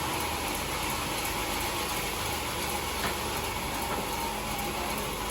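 Homemade band sawmill running steadily, an even mechanical noise with a low hum underneath.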